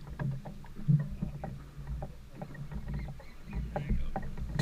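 Low, uneven rumble of a fishing boat at sea, with scattered light knocks and clicks.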